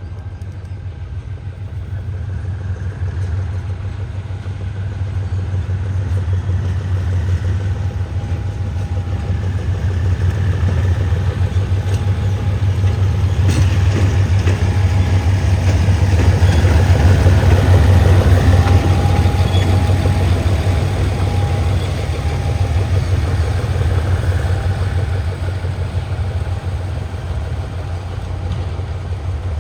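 Diesel train engine running with a steady low drone, growing louder to a peak about two-thirds through and then easing off, with a single sharp click just before the middle.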